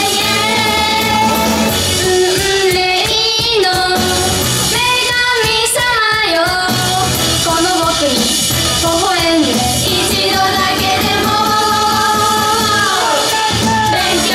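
Live J-pop song by a female idol group: several female voices singing a melody over loud, steady pop backing music.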